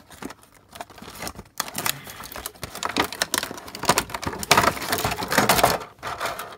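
Thin clear plastic blister packaging crackling and clicking as it is flexed and pulled apart by hand to free a toy. Sparse clicks at first, then a dense run of crackles from about a second and a half in, loudest near the end before it stops.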